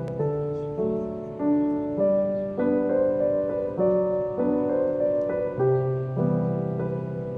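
Background music: a gentle solo piano piece with notes struck in a steady, even rhythm.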